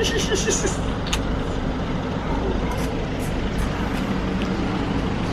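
Steady road traffic noise with a deep rumble of vehicle engines, with a few faint sharp clicks.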